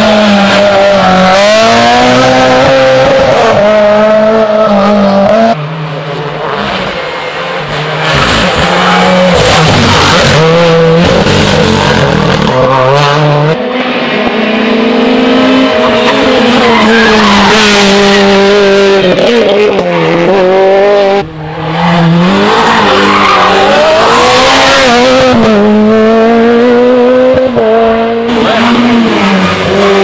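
Rally cars, among them a Renault Clio and Peugeot 208 R2s, driven flat out through tight tarmac bends, one after another. The engines rev high, drop as the cars brake into the corners, then climb again through quick gear changes on the way out.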